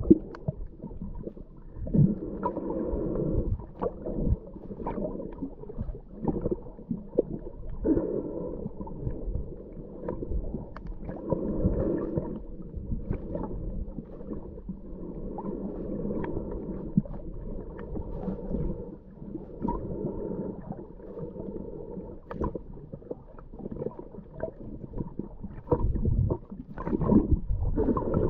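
Muffled underwater sound picked up through a submerged camera housing as the spearfisher swims along the bottom: a low rushing of water that rises in swells every three to four seconds, with scattered small clicks and knocks.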